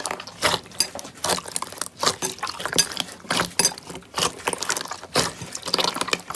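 Slime being squeezed and pressed by hand, making a dense run of irregular wet squelches and small pops.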